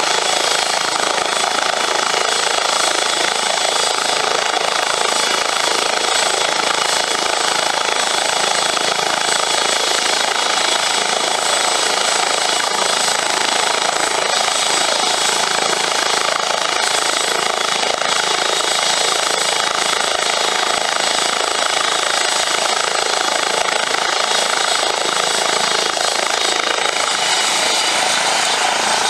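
Airbus H135 (EC135) twin-turbine air-rescue helicopter running on the ground with its main rotor turning. A steady high turbine whine sits over the rotor noise, and the whine begins to rise in pitch near the end as the engines spool up for take-off.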